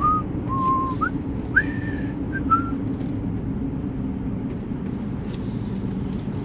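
Steady low hum of a pickup truck driving downhill, with a few short whistle-like notes, some sliding upward, in the first three seconds.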